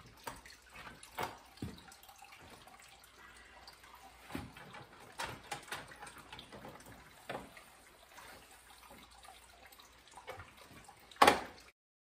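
Hand crank turning a car scissor jack on a homemade apple press as it is loosened: scattered light clicks and knocks, the loudest near the end, over faint dripping of apple juice draining from the press.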